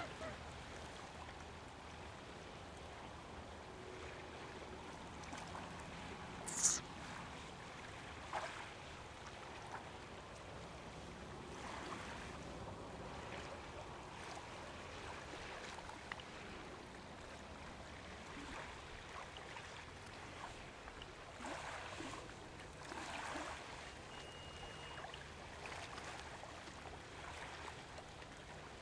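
Small waves lapping softly on a shoreline, swelling and easing every few seconds, with a sharper brief splash about six and a half seconds in.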